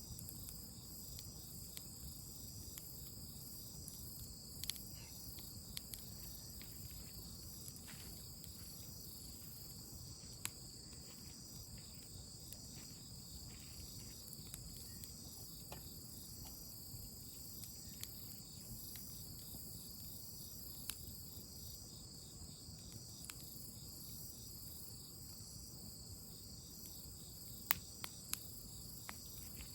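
Crickets and other insects chirping steadily in a high, pulsing chorus, over a campfire crackling with scattered sharp pops, two of the loudest pops coming close together near the end.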